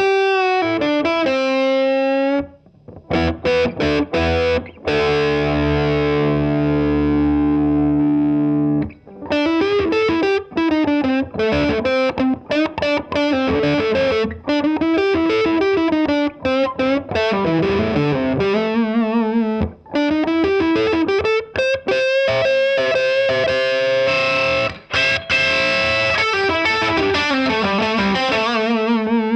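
Amplified solidbody electric guitar with Kloppmann HB58 humbuckers being played: a chord rings out for several seconds near the start, then melodic runs of single notes, some wavering in pitch as they are bent or shaken.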